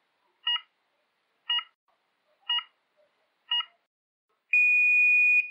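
Electronic start countdown beeper: four short beeps a second apart, then one long, steady, higher beep lasting about a second, the pattern of a race start signal.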